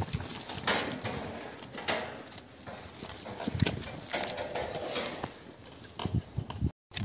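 Hooves of loaded pack donkeys stepping over rocky ground, irregular clops and knocks with scuffing.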